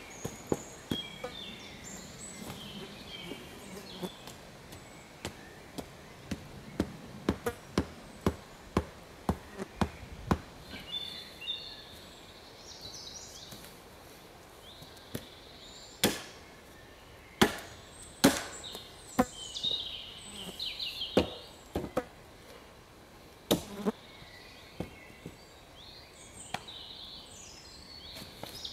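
Axe chopping wood: a steady run of blows about two a second for the first ten seconds, then a pause and a few louder, more widely spaced strikes. Birds chirp in the background.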